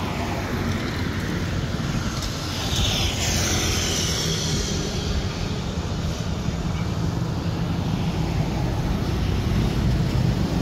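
Steady low engine rumble, with a brief hiss about three seconds in.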